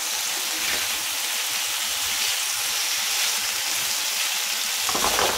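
Sliced potatoes sizzling in hot oil in a frying pan as they are stirred with a spatula, with a brief clatter of the spatula on the pan near the end.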